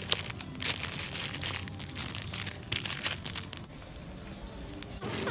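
Plastic-wrapped packs of dry spaghetti crinkling and crackling as they are pulled off a shelf and handled, dying down about a second before the end.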